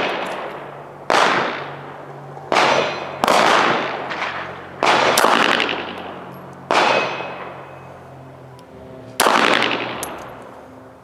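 Six handgun shots fired slowly and unevenly spaced, each a sharp crack with a long fading echo.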